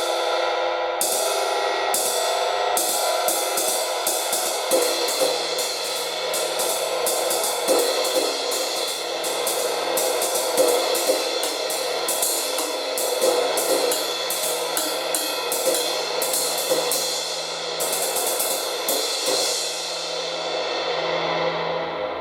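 MEINL Byzance Dark Crash 16" cymbal, an unlathed cymbal with a dry, dark, short sustain, struck repeatedly with a stick in a steady, ride-like pattern. Near the end the strokes stop and the wash rings down.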